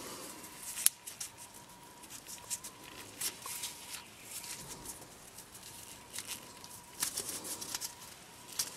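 Gloved hands working a new rubber O-ring onto a speedometer driven-gear housing: faint rubbing and small clicks and taps, with a sharp click about a second in and a few more near the end. A faint steady high tone runs underneath.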